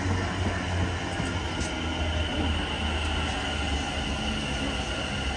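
West Midlands Railway Class 350 Desiro electric multiple unit running past along the platform: a steady low rumble of wheels on rail, with a thin high electric whine that grows a little stronger about halfway through.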